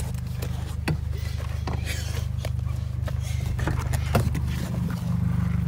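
Car engine idling steadily with the driver's door open, with a few scattered clicks and knocks from someone climbing out of the seat.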